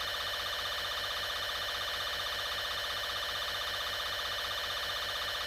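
Steady electronic warning tone of a mock emergency broadcast: a buzzing chord of several pitches with a fast, even flutter, holding at one level.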